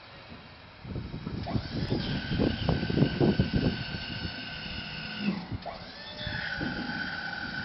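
Snowplow hydraulic pump whining as the blade is swung to a new angle. The whine rises and settles into a steady high tone with low knocking under it, cuts out after a few seconds, then rises again and holds.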